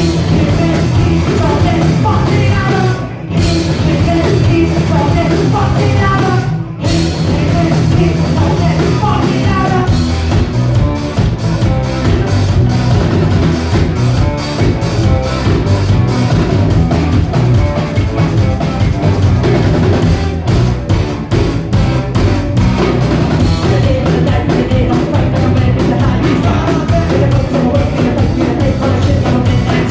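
Live rock band playing loudly with singing and a drum kit; the music stops for a split second twice in the first seven seconds, then runs on with busy, fast drumming.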